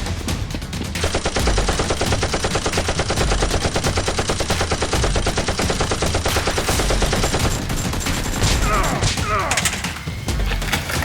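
Rapid automatic gunfire: a long, even stream of shots starting about a second in, thinning to scattered shots near the end.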